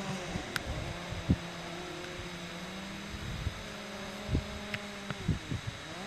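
DJI Mavic Pro Platinum quadcopter's propellers humming steadily, the pitch shifting as the motors work against gusty wind. A few low thumps of wind buffet the microphone.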